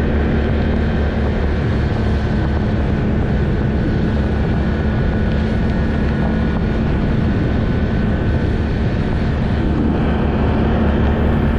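ATV engine running at a steady pace under way, a constant low drone with no change in speed.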